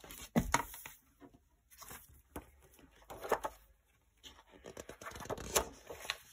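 Hardcover picture book being opened and its pages turned by hand: a few soft paper swishes and light taps of the cover and pages.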